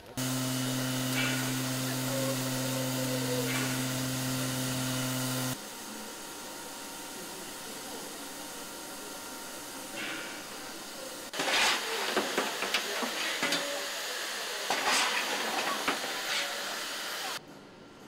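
Century-old coal-burning steam locomotive: a deep, steady whistle held for about five seconds, then steam hissing, which turns louder and more uneven for the last several seconds before cutting off suddenly near the end.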